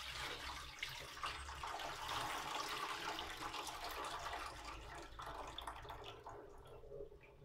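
Cloudy rinse water pouring and splashing out of a tilted enamel pot of precooked hominy into a sink, the kernels held back by a hand. The flow thins and dies away near the end as the pot drains.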